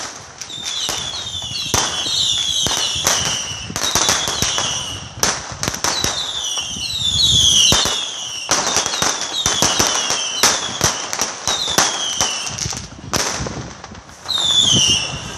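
Fireworks and firecrackers going off again and again: sharp bangs and crackling pops, mixed with many high whistles that each fall in pitch over about half a second.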